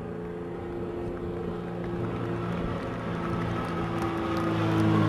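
Super Mushshak trainer aircraft's piston engine and propeller droning at a steady pitch overhead, growing louder toward the end as it comes closer.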